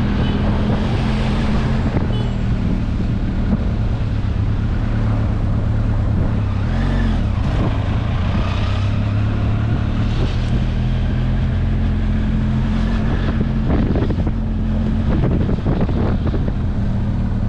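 Motorcycle engine running steadily at low speed, a low hum under wind noise on the microphone.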